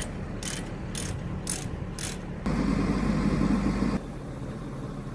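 Regular mechanical clicking, about two clicks a second, then a louder low rumble that starts suddenly about two and a half seconds in and cuts off about a second and a half later.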